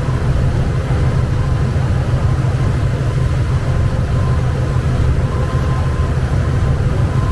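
Cruise boat's engine running with a steady low drone, under a faint hiss of wind and water.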